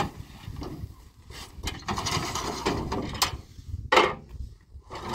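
Handling noise of unloading a pickup truck: a woven plastic sack rustling as it is dragged off the tailgate, and firewood and a round metal baking sheet shifting on the metal truck bed. A single sharp knock about four seconds in is the loudest sound.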